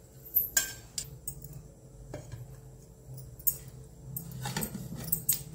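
Metal spoon clinking and scraping against plates, a series of short irregular clinks while Maggi noodle stuffing is spooned onto a bread slice, with a steady low hum underneath.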